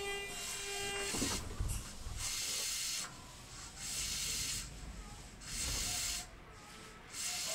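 Tokyu 5050 series 4000-number electric train's IGBT-VVVF inverter: its steady whine cuts off with a clunk about a second in as the train comes to a halt. Then compressed air hisses from the underfloor equipment in short bursts every second or two while the train stands.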